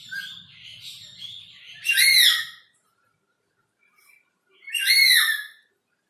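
Lories calling: two loud, harsh screeches that rise then fall in pitch, about three seconds apart, after some softer chattering.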